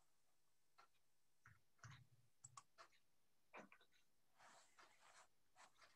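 Near silence with a scatter of faint clicks in the first four seconds, from a computer mouse and keyboard being worked, then a brief soft noise a little after the middle.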